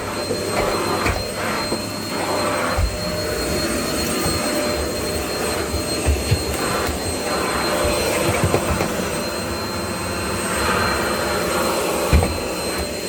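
Bush cyclonic stick vacuum cleaner running steadily, its motor giving a constant high whine over the rush of air. A few short low knocks come through, about six, eight and twelve seconds in.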